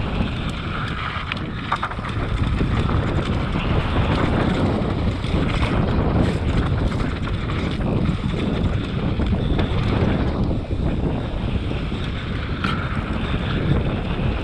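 Wind rumbling on the microphone of a mountain bike riding down dry dirt singletrack, mixed with the rolling noise of the knobby tyres on the dirt and a few brief clicks and knocks from the bike.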